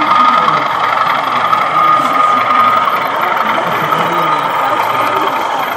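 Model diesel trains running on an exhibition layout: a steady engine-like drone with a thin constant whine, over the murmur of background chatter in a busy hall.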